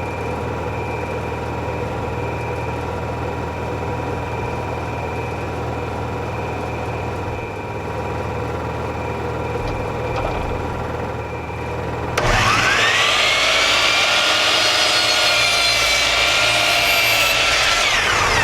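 Portable generator engine running steadily. About twelve seconds in, a power miter saw starts with a rising whine and runs loudly through a cut to the end.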